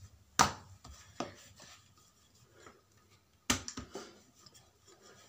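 Wooden rolling pin knocking against the work surface and rolling out a round of dough: two sharp knocks, one about half a second in and one past the middle, with a few fainter knocks and quiet rubbing between.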